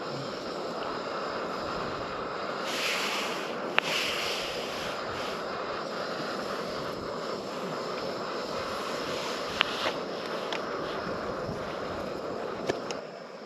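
A camping gas stove burning under a kettle makes a steady rushing noise, mixed with wind gusting through the open tent door. A stronger gust swells about three seconds in, and a few sharp clicks stand out.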